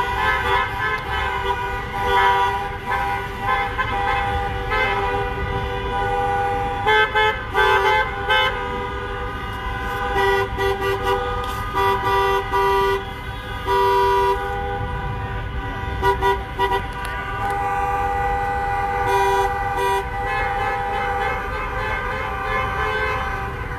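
Many car horns honking on and off, long blasts and short toots overlapping, over the low drone of slow traffic.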